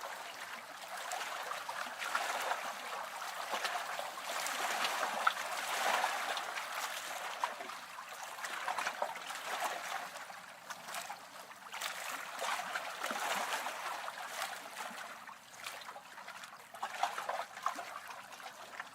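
Small lake waves lapping against a shore, a steady wash of water with little splashes that swells and eases every few seconds.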